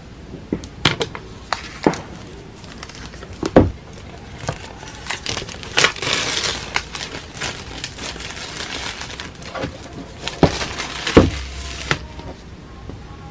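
Clear plastic shrink wrap crinkling and crackling as it is torn and peeled off a cardboard iPad box, with several sharp knocks from handling the box.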